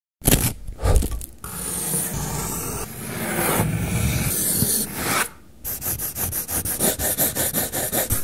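A wooden pencil twisting in a small hand-held sharpener at the start. Then the graphite pencil scrapes across paper in long steady strokes, and after a short pause it shades in quick back-and-forth hatching, about five strokes a second.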